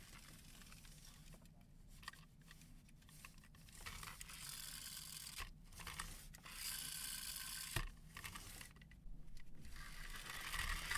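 Toy packaging being torn open and crinkled by hand, in irregular, fairly quiet bursts of rustling and tearing with a sharp click near the end.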